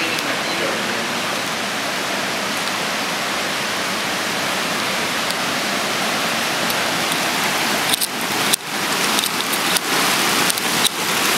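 Creek water rushing over sandstone ledges and small cascades, a steady loud rush. In the last few seconds several sharp knocks and brief dropouts break in.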